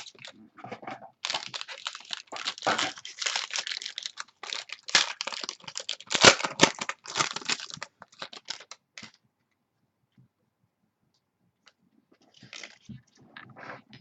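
Plastic and paper crinkling and rustling with sharp crackles as trading cards and their packaging are handled, stopping about nine seconds in; softer rustling returns near the end.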